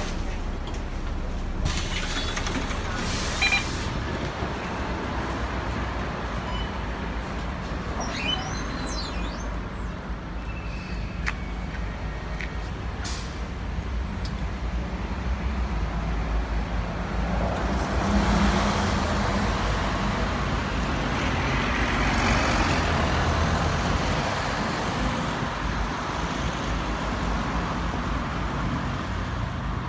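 Volvo B9TL double-decker bus's diesel engine running at a stop, with a burst of air hissing from the brakes or doors near the start. The engine grows louder from about halfway through as the bus pulls away.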